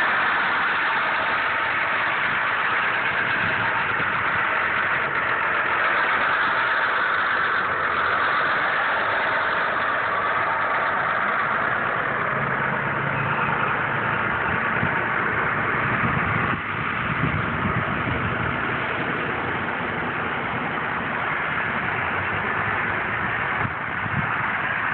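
Engine of an all-wheel-drive Ford flatbed truck running steadily, idling and then driving off across open ground.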